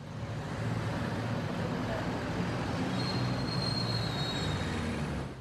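Road traffic noise: a steady rumble of vehicle engines and passing traffic, with a faint high whine about three seconds in.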